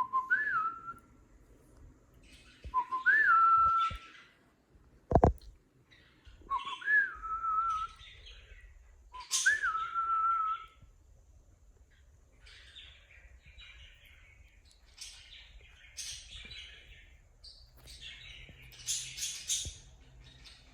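Cockatiel whistling the same short phrase four times, each a low note that jumps up and settles a little lower, lasting about a second and a half. In the second half it switches to scratchier, noisier chirps. A single sharp thump about five seconds in is the loudest moment.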